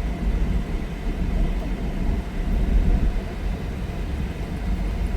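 Uneven low rumble of a vehicle on the move, with wind buffeting the microphone.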